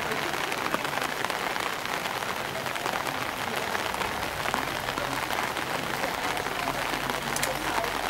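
Steady patter and hiss of water on wet pavement, from rain and shallow floodwater running across a paved lane.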